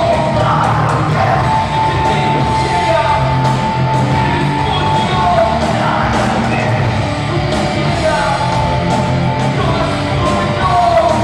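Live rock band playing loudly: electric guitars, bass, drums and keyboard, with a held, bending lead line on top.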